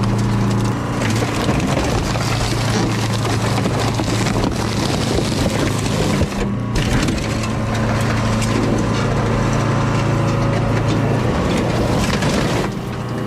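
A heavy machine's engine running steadily under loud crushing and crunching, as scrap metal is crushed, with brief breaks about six and a half seconds in and near the end.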